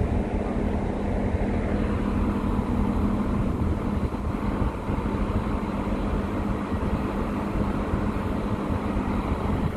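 Passenger train moving slowly along the track with a steady, even hum from its engine.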